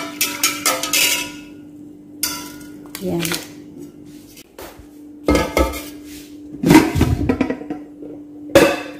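A metal whisk clattering quickly against a non-stick rice cooker inner pot while stirring gelatin into water, then a few loud knocks and clunks as the pot is handled. A steady low hum runs underneath.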